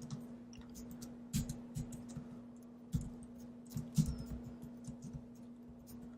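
Computer keyboard keys clicking faintly in a slow, irregular run of single keystrokes, over a low steady hum.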